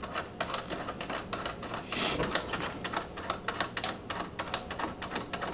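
Rapid, irregular light clicking and tapping of small hardware as nuts are started onto the mounting studs of a new side mirror on a pickup door, with a brief rustle about two seconds in.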